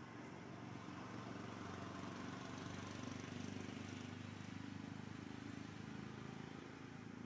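Low hum of a distant motor vehicle engine, swelling gently toward the middle and easing off again as it passes.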